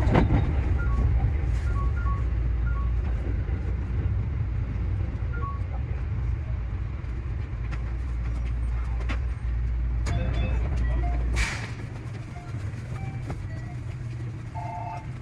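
JR Central 315-series electric train running on the rails: a steady low rumble with scattered sharp clicks. The rumble drops away abruptly about eleven seconds in.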